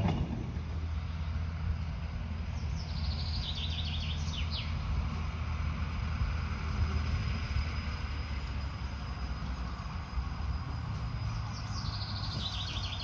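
Low, steady drone of a park railway's small diesel locomotive running in the distance. A songbird sings twice over it, each song a quick falling series of notes about two seconds long.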